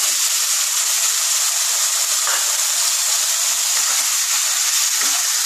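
Raw boneless chicken pieces sizzling in hot oil in a nonstick frying pan as they go in and are stirred with a wooden spatula: a steady high hiss with a few faint scrapes.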